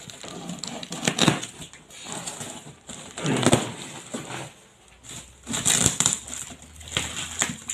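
Packaging being handled: crinkling and rustling in several bursts, with quieter gaps between them.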